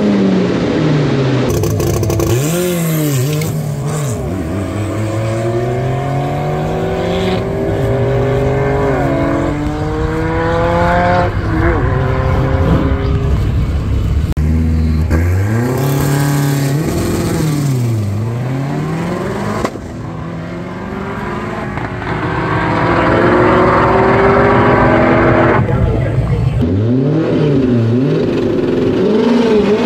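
Race car engines revving and accelerating hard. The pitch climbs, falls back and climbs again over and over, and the sound changes abruptly several times.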